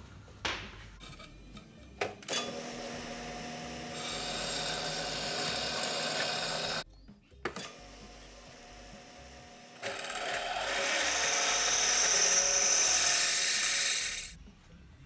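Jet benchtop drill press running, its bit drilling into a stainless steel cleaver blank, with a few clicks in the first couple of seconds. The cutting noise is loudest and hissiest in the last few seconds.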